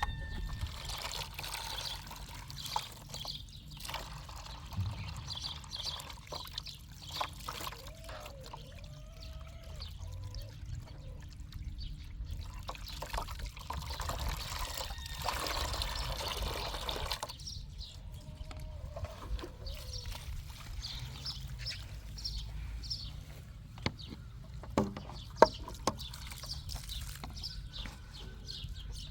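Water pouring and trickling, with birds chirping now and then and a few sharp knocks near the end.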